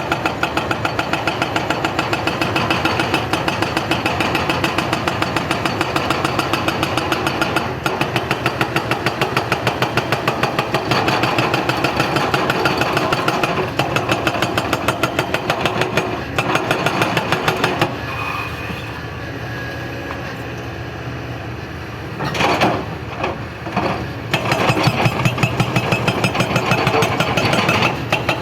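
Excavator engine running under a regular pounding about four times a second. Past the middle the pounding stops for a few seconds, leaving a lower engine sound with a few sharp knocks, then it starts again.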